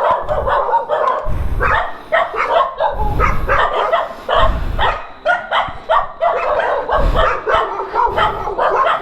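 A pack of several dogs barking and yipping repeatedly in an overlapping, irregular chorus, with a few short low rumbles underneath.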